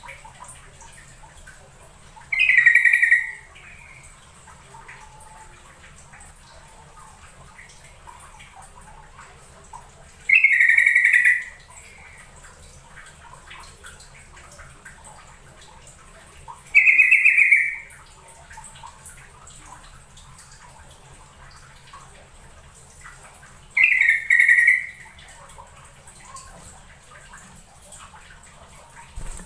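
Yellow-vented bulbul (trucukan) singing: four short, bubbly phrases about a second long, spaced roughly seven seconds apart, the last one broken in two.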